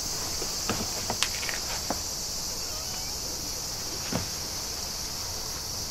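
Steady high-pitched insect chirring in the background, with a few light clicks and taps at about one, two and four seconds in.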